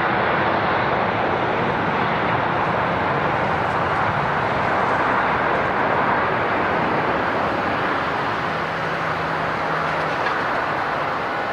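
Jet airliner engines: a loud, steady rushing noise that eases slightly near the end.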